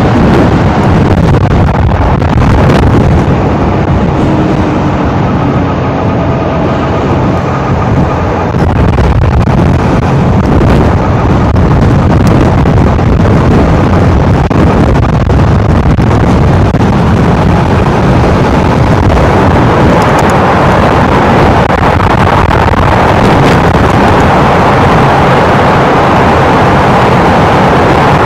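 MZ 301 motorcycle riding at highway speed: steady engine and wind noise, with wind on the microphone. About two-thirds of the way in the sound fills out in the middle range as the bike enters a road tunnel.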